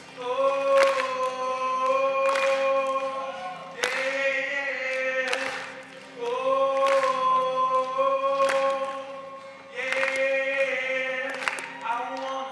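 A man sings long held notes while strumming an acoustic guitar, with one sharp strum about every second and a half under the voice.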